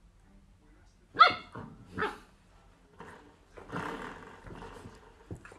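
A puppy barking: a sharp, high yelping bark about a second in and a shorter bark just after, then a longer, rougher grumbling growl-bark near the end.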